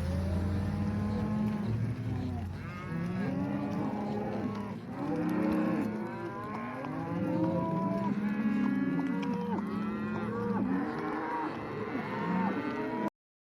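A herd of cows bawling, many calls overlapping at once at higher and lower pitches. The sound cuts off suddenly near the end.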